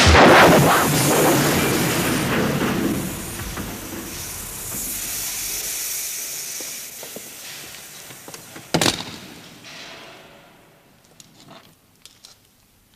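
A loud hiss that slowly dies away over about ten seconds, following gunfire, with one sharp bang about nine seconds in and a few faint clicks near the end.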